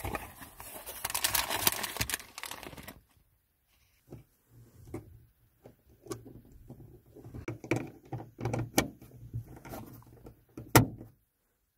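Rustling and scraping of things being handled. After a short break comes a run of irregular clicks and knocks, with one sharp, loud knock near the end.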